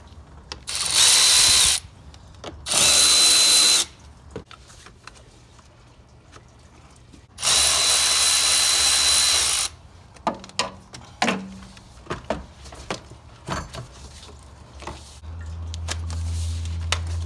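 Milwaukee M12 cordless power ratchet with a 7 mm socket spinning out the intake pipe's hose clamps: two short runs of about a second each, then a longer two-second run, each with a steady high motor whine. Light clicks and knocks follow as the intake pipe is worked loose by hand.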